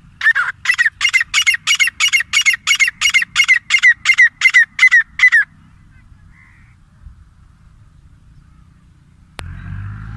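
Grey francolin calling: a fast, even series of loud, harsh repeated notes, about three or four a second, building in loudness and stopping after about five seconds. Near the end a sharp click, then a low steady background noise.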